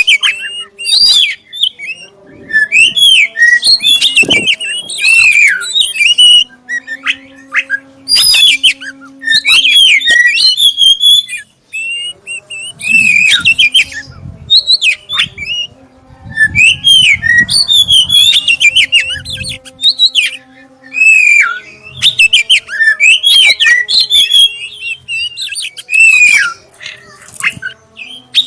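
Black-breasted Oriental magpie-robin (kacer dada hitam) singing loudly: fast, varied whistled phrases with rising and falling notes, delivered in bursts of a few seconds with short pauses between them.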